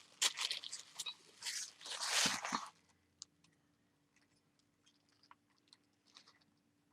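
Packaging crinkling and tearing in bursts as pancake dies are unwrapped, lasting about three seconds, then a few faint light clicks.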